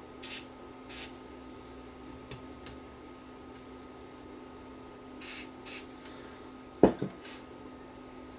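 Short hissing squirts of contact-cleaner spray, in pairs, worked into the cassette recorder's switches. About seven seconds in comes a sharp knock, with a lighter one right after.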